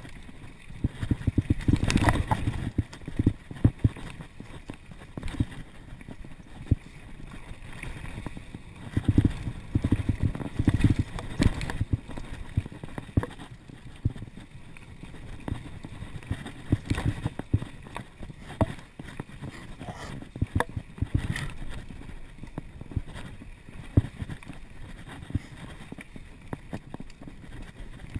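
Mountain bike riding fast over a bumpy dirt trail: the bike and its mounted camera knock and rattle irregularly over the rumble of the tyres on the dirt, with the heaviest jolts about two seconds in and again around nine to eleven seconds.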